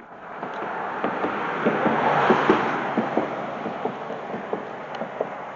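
A vehicle passing by, its tyre noise swelling to the loudest about two seconds in and then fading, with scattered small clicks over it.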